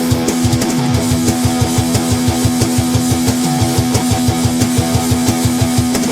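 Rock band instrumental passage: electric guitar holding a long low note and chords over fast, even kick-drum beats and cymbals. The chord changes just after the end.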